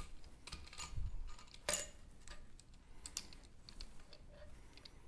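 Small metallic clicks and clinks of a valve spring compressor, valve springs and retainers being worked on a cylinder head: a scattered run of sharp ticks, with one louder clink a little under two seconds in.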